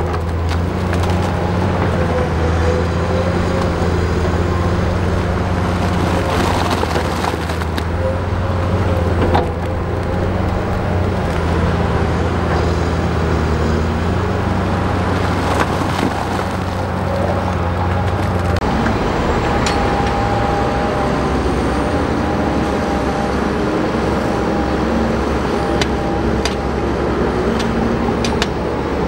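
Bulldozer's heavy diesel engine running, with scattered sharp clanks and cracks. The deep engine drone drops away about two-thirds of the way through.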